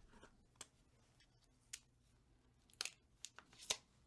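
Paper and cardboard packaging of an Apple Pencil Pro box being handled: a few faint, short rustles and crinkles, the loudest near the end.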